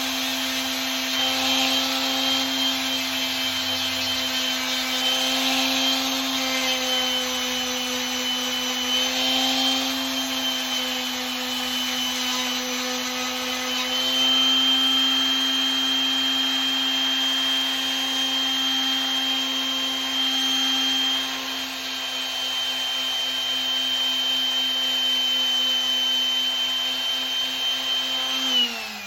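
Electric sander with 320-grit paper running steadily against the brass of a putter's hosel, its motor pitch dipping slightly as it is pressed into the work. Near the end it is switched off and winds down, its pitch falling.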